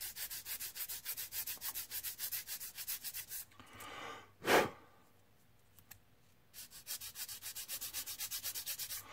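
A sanding stick rubbing quickly back and forth over a small plastic model part, about five strokes a second, smoothing off sprue marks. The strokes stop about three and a half seconds in, a short loud puff of breath follows about a second later, and the sanding starts again near the end.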